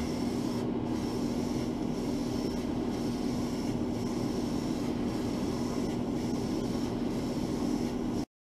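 Airbrush compressor running steadily with a constant hum, under the hiss of air through the airbrush as it sprays a silver base coat onto a lure. The sound cuts off suddenly near the end.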